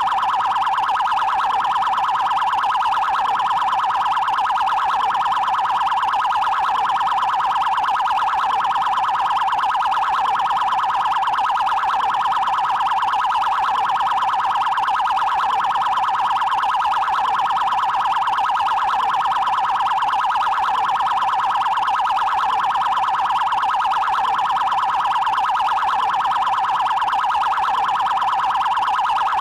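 Brazilian Federal Highway Police (PRF) electronic siren on its 'prioridade' tone: a high, rapidly pulsing warble, steady in loudness and unbroken.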